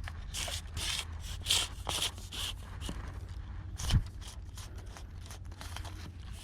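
Repeated short scraping and rustling strokes, with one sharper knock about four seconds in.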